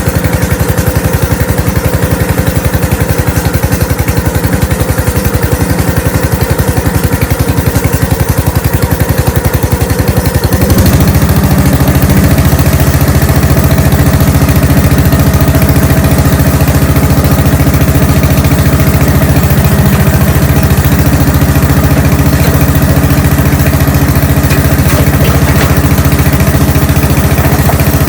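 Gravely tractor engine running steadily just after a cold start on ether in extreme cold. About eleven seconds in, its note changes and it gets a little louder, then settles into an even run.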